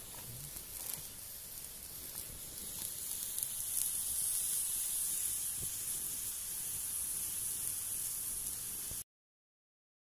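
Stew simmering and sizzling in a large aluminium wok over a gas burner: a steady hiss that grows a little louder about three and a half seconds in and cuts off suddenly near the end.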